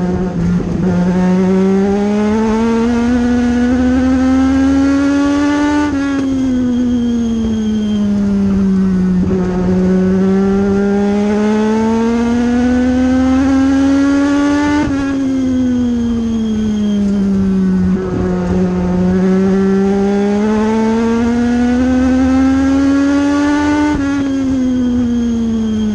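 A US Legend Car's Yamaha motorcycle engine, heard from inside the cockpit, revving up along each straight and dropping as the driver lifts for the turns. The pitch climbs steadily for about five or six seconds, then falls over about three, three times over, once per lap of the short oval.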